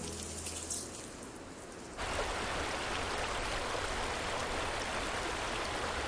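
Faint dripping of melting ice. About two seconds in it gives way to the steady rush of snowmelt water trickling over rocks.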